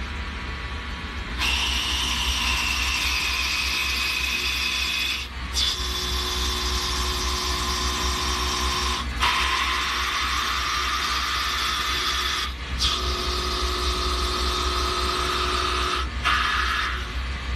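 Lathe machining: a steady whine and hiss of a cutting tool working a spinning workpiece, over a constant motor hum. The sound changes abruptly every few seconds, about four times.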